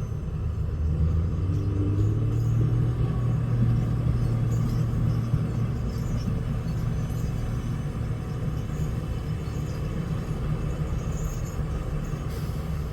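Diesel engine of heavy logging equipment running under load with a low drone, swelling and rising slightly in pitch about a second in, then settling back to a steady run.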